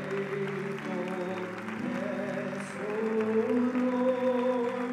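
Soft worship music on a keyboard: sustained chords that change slowly.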